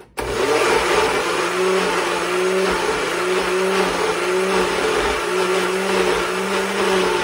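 Countertop electric blender switched on and running, blending garlic cloves with olive oil; its motor hum wavers slightly in pitch. The mix is thick and not blending fully, so the blades tend to stick on whole cloves.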